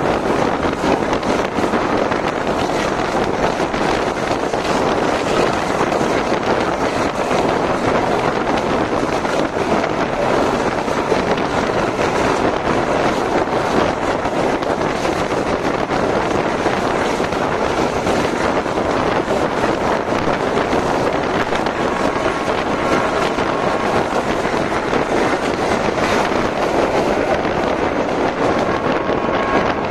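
Steady rushing wind and rolling wheel-on-rail noise from a moving passenger train, heard at an open carriage doorway, with wind buffeting the microphone.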